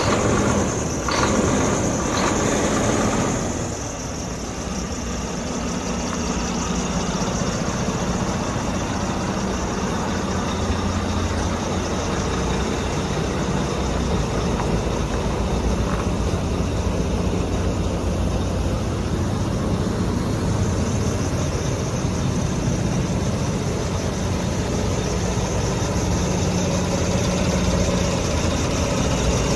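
Volvo D13 inline-six diesel engine of a Volvo 670 road tractor idling steadily, with a low, even hum. A few short noises sound over it in the first three seconds.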